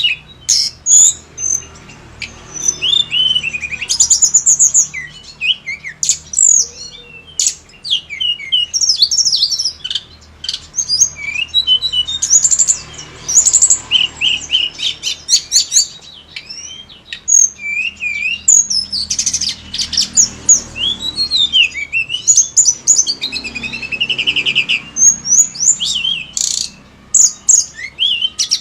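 Tledekan gunung songbird singing busily: a fast run of sharp chirps, rapid trills and quick rising and falling slurred notes with short pauses between phrases. It is a lure recording meant to set other tledekan singing.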